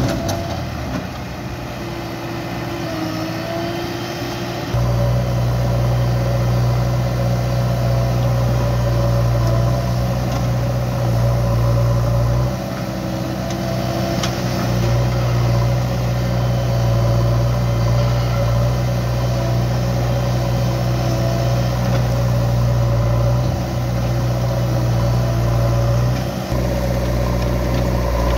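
Diesel engine of a JCB 3DX backhoe loader running under working load. It steps up to a higher, steady pitch about five seconds in and holds there, with a whine over the engine and two brief dips.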